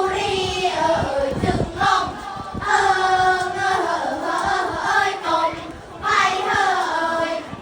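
A high-pitched voice singing a melody, with held notes that bend in pitch and short breaks between phrases.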